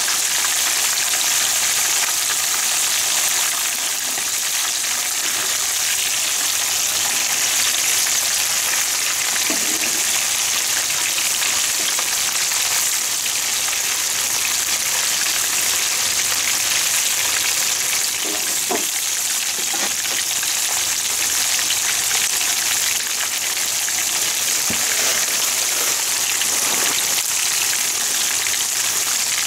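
Battered karaage pieces deep-frying in a wok of hot oil: a steady, dense sizzle and crackle of bubbling oil.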